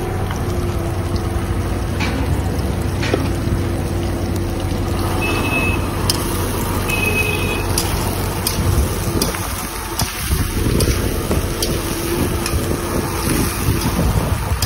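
A metal spatula clicking and scraping against a large iron wok as chopped onions and peppers are stir-fried, over a steady low rumble.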